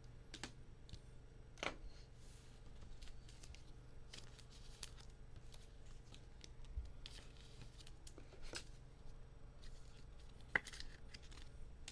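Faint, scattered rustles, scrapes and light clicks of trading cards being handled and sorted.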